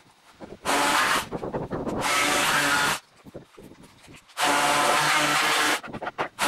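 Black+Decker electric orbital sheet sander running on wood with a steady motor hum, heard in several separate stretches that start and stop abruptly, with quiet gaps in between.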